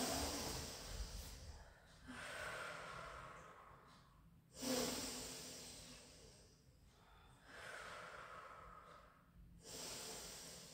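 A woman breathing deeply and audibly while holding an exercise pose: slow breaths in and out, a soft rush of air about every two seconds.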